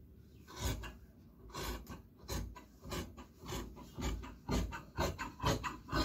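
Large tailor's shears cutting through trouser cloth along a chalk line on a wooden table, a run of rasping cuts about two a second.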